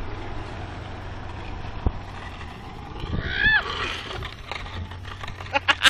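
Wind rushing over the microphone, then about three and a half seconds in a person's single short yell that rises and falls in pitch as the trike rider wipes out on the road. Near the end come a few quick, sharp bursts.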